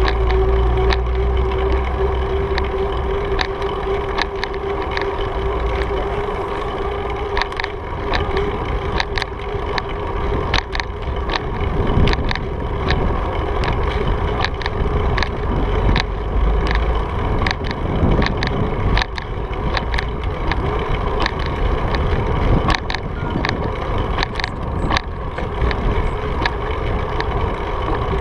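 Wind rushing over a bike-mounted camera while the bicycle rolls along, with frequent sharp clicks and rattles and a steady hum that fades out about a third of the way through.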